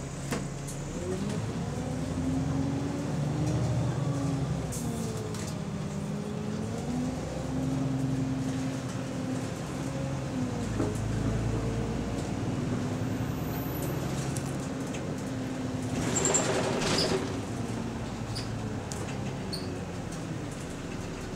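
Double-decker bus engine heard from the lower deck, rising in pitch in steps as the bus pulls away and accelerates, then running steadily. A thump right at the start and a short hiss about three-quarters of the way through.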